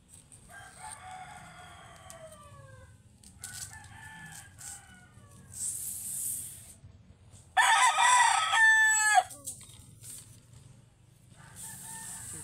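Roosters crowing: a fainter crow falling in pitch about a second in and another around four seconds, then a loud close crow about eight seconds in, and a further crow starting near the end.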